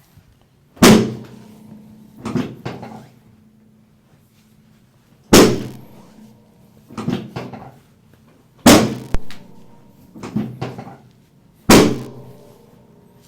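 Chiropractic drop table: the drop section slams down four times with a loud clack, each slam followed by a few softer knocks.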